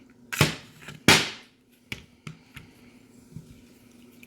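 Handling of a KJ Works Glock 26 gas blowback airsoft pistol as its magazine is taken out: two sharp, hissy snaps in quick succession, then a few light clicks.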